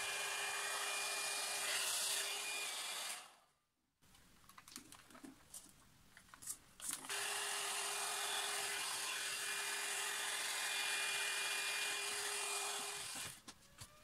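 Handheld hair dryer running with a steady rush of air and a fixed motor hum, blowing acrylic paint outward for a bloom pour. It stops about three seconds in, a few light clicks and taps follow, and it runs again from about seven seconds until shortly before the end.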